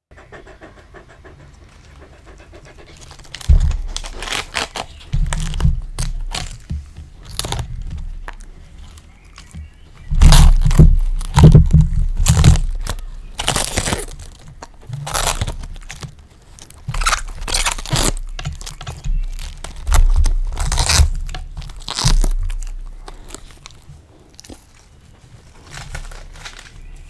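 Samoyed biting and chewing raw cabbage leaves close to the microphone: irregular crunches one after another, loudest and thickest from about ten seconds in.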